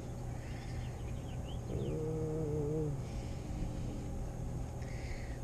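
Low rumble of wind buffeting the microphone, with a short wavering hum-like tone about two seconds in and a few faint high chirps before it.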